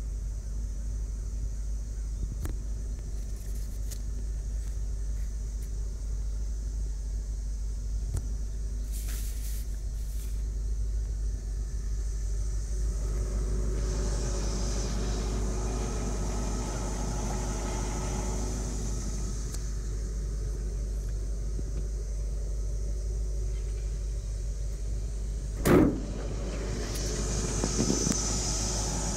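A steady low rumble, and one loud, sharp thump about three-quarters of the way through, as the trunk lid of the 1976 Lincoln Continental Mark IV is slammed shut.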